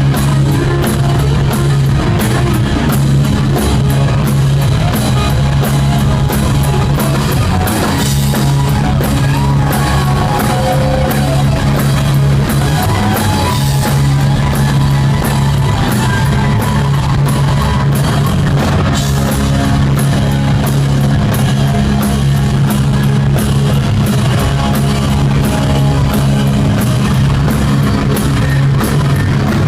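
Live hard-rock band playing: electric guitar over a driving drum kit and bass, loud and unbroken.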